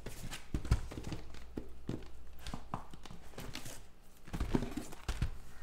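Sealed trading-card boxes being pulled out of a cardboard shipping case and set down on a table: cardboard rubbing and a run of light knocks and thuds, with a cluster of them near the end.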